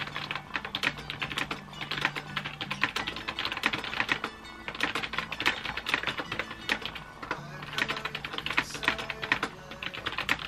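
Fast typing on a computer keyboard: rapid key clicks in bursts, starting at once and pausing briefly twice, over soft piano music.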